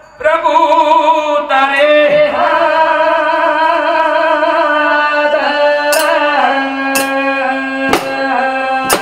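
Live Banjara devotional bhajan: men singing long held notes with accompaniment, joined in the second half by sharp percussion strikes about once a second.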